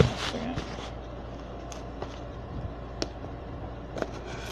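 Cardboard shipping box being handled and worked open by hand: a sharp knock right at the start, then a few faint taps and rustles over a steady low hum.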